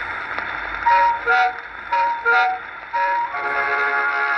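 Acoustic 78 rpm shellac record playing on a 1928 Cliftophone gramophone. Surface hiss at first, then three cuckoo calls, each a high note falling to a lower one, about a second apart. About three seconds in, the tune itself starts with held chords.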